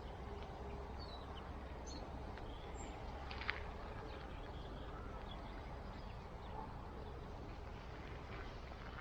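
Quiet rural outdoor ambience: a steady low rumble with a few faint, scattered bird chirps, and a single short click about three and a half seconds in.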